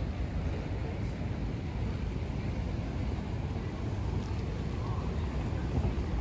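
Wind buffeting the microphone of a handheld camera as it moves through an open plaza: a steady low rumble over faint outdoor background noise.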